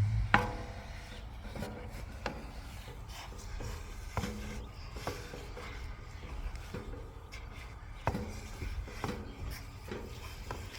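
Wooden cooking stick scraping and knocking against a pot, stirring and pressing ugali, with irregular sharp knocks every second or so.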